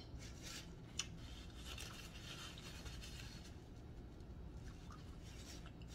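Faint rustling of a paper napkin being handled and pressed to the mouth, with a single soft click about a second in.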